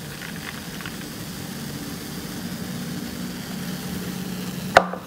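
A steady low mechanical hum with one sharp click near the end.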